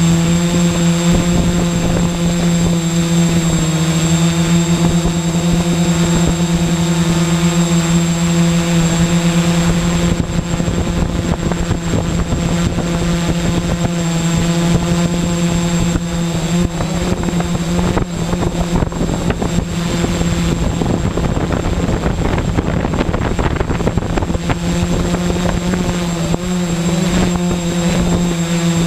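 Quadcopter's electric motors and propellers whining steadily, heard from a camera mounted on the craft, a hum of several steady pitches. Through the middle stretch the sound turns rougher and noisier.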